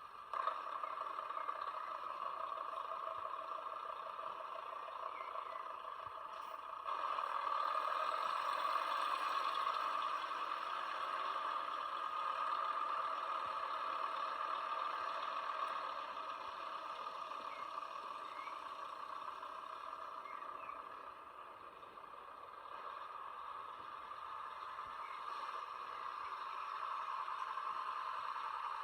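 Truck-mounted concrete pump on a Mercedes Actros 8x4 running steadily, with a continuous mechanical noise. It steps louder about half a second in and again about seven seconds in, then eases off somewhat past the middle.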